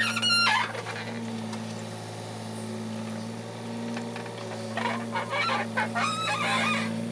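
Kubota KX016-4 mini excavator's diesel engine running under steady load with a low, pulsing hum as the bucket digs and lifts soil. A cluster of high squeals comes near the end.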